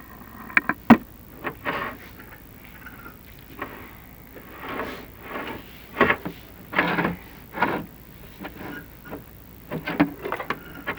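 Chimney inspection camera knocking and scraping against the clay flue tiles as it is pushed up the flue. A few sharp clicks come about a second in, followed by separate rubbing scrapes.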